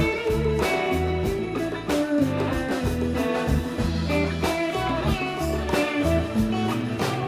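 Instrumental break of a live band song: electric guitar playing a lead over bass and drums, with a blues feel.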